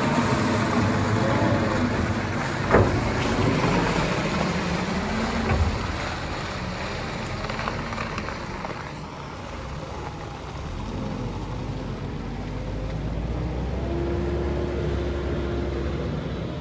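Telehandler's diesel engine running while the machine drives about, its note rising and falling, with a sharp knock about three seconds in.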